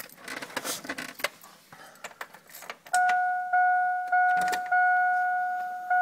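A 1999 GMC Sierra's dashboard warning chime dinging repeatedly with the ignition switched on, starting about three seconds in with a ding roughly every half second. Before it come rustling and a few clicks.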